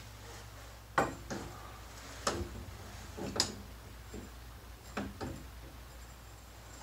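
Caulking gun being squeezed, giving about four sharp clicks a second or so apart as its trigger and plunger rod advance to push out caulk.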